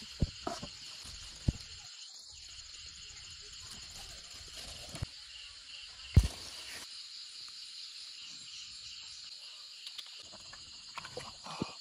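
Night insects chirping steadily, with a few sharp knocks as bamboo tubes are handled and set down on a metal grill, the loudest about six seconds in.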